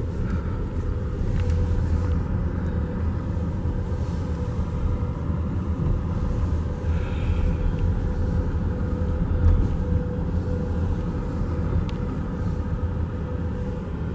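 Vehicle driving slowly over a flood-damaged, broken road: a steady low rumble of engine and tyres heard from inside the cab, with a steady hum.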